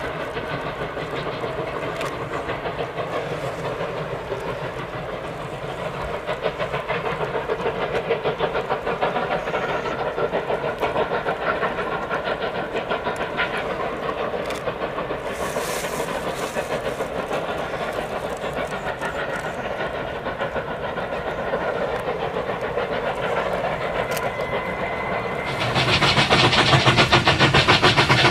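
Steam train running on the rails with a steady, fast clatter of wheels, and a brief hiss about halfway through. Near the end the sound turns suddenly louder and brighter.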